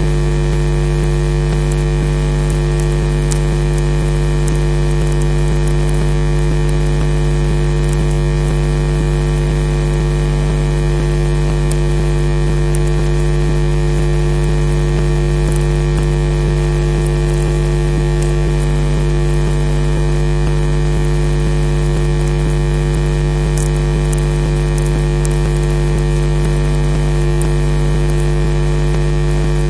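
Loud, steady electrical mains hum: a buzz with many overtones over a hiss, with scattered faint static crackles, picked up on the nest camera's audio line. No bird call is heard.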